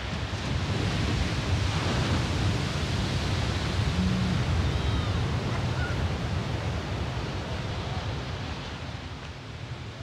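Heavy surf breaking and churning as white water, a steady rushing noise that swells over the first two seconds and slowly eases off toward the end.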